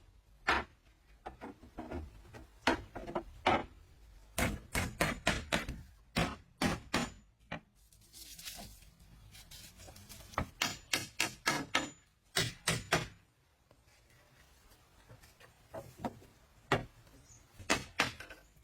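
Wood being struck with a tool: bursts of quick, sharp knocks, several a second, with pauses between bursts.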